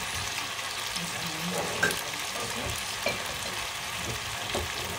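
Chicken feet frying in a wok, a steady sizzle with a few sharp clicks and pops scattered through it.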